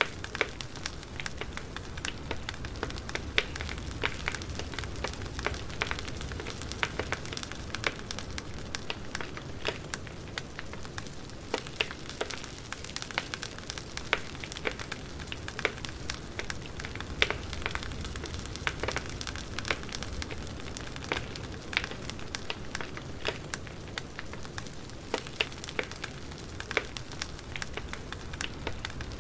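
Campfire burning, with a steady low rush of flames and frequent irregular sharp crackles and pops from the burning wood.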